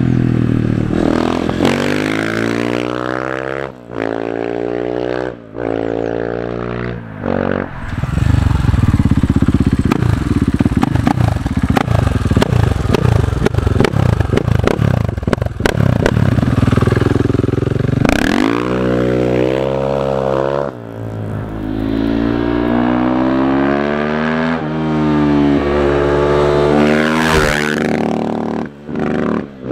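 Husqvarna FE 501 supermoto's single-cylinder four-stroke engine with FMF exhaust accelerating hard, its pitch rising and dropping back through several gear changes. In the middle comes a long stretch of loud, rough, low-pitched noise. The bike then pulls up through the gears again near the end.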